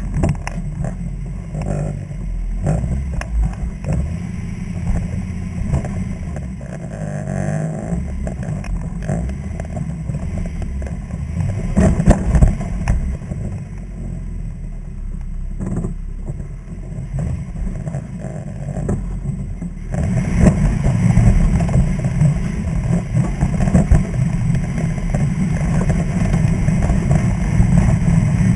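Off-road vehicle's engine running at low speed, heard through a hood-mounted camera, as it crawls over rocks, with knocks and rattles from the rough ground. It gets louder about two-thirds of the way through.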